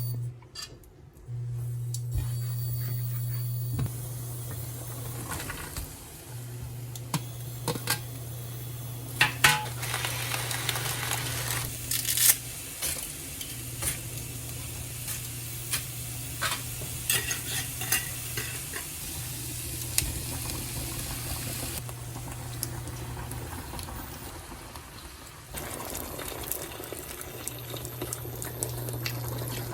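Food sizzling and frying in a pan while it is stirred, with a utensil clicking against the pan now and then, over a low hum that cuts in and out.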